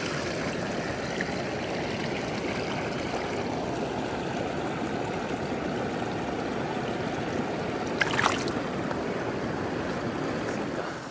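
Shallow river water rushing and gurgling close by, an even, dense rush, with one brief splash about eight seconds in.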